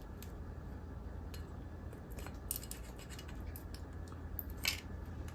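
Pliers probing inside a TV switchbox housing: irregular light metallic clicks and ticks as the jaws knock against the metal parts, one sharper click about four and a half seconds in.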